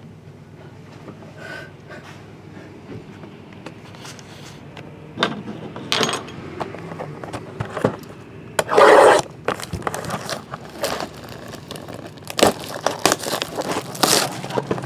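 Hands opening a cardboard trading-card box. After a quiet start come bursts of rustling, tearing and scraping, the loudest a long rip about nine seconds in, ending with the lid being lifted off.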